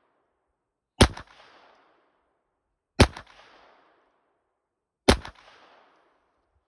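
Three shots from a Glock 44 .22 LR pistol, about two seconds apart, each followed by a short fading echo.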